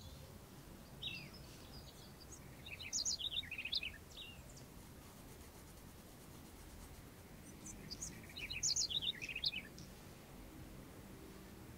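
A bird chirping in two short runs of quick high notes, one in the first four seconds and another around eight to nine seconds in, over quiet room tone.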